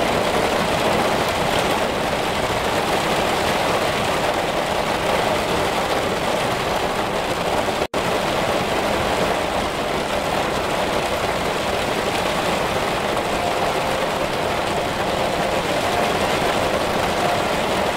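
Heavy rain falling steadily, an even hiss with no pauses, except that the sound cuts out completely for an instant about eight seconds in.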